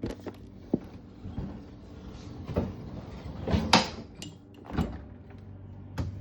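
A handful of knocks and clunks, as of refrigerator panels or a door being handled, the loudest about three and a half seconds in, over the steady low hum of the refrigerator running.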